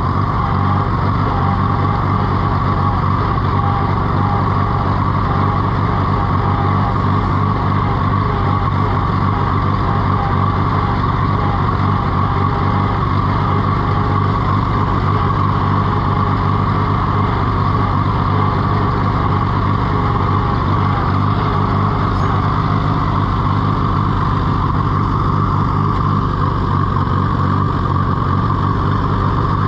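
Case VAC tractor's four-cylinder engine running steadily while the tractor drives along in second gear. The owner calls its running pretty pathetic and puts it down to poor ignition points.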